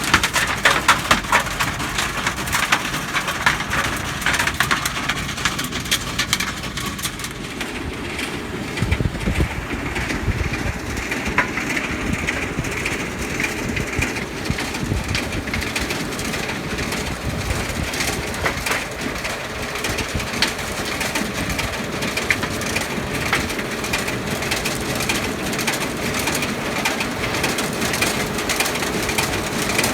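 Stone picker at work, stones clattering and knocking against each other and the machine as they are gathered, over the tractor engine running beneath.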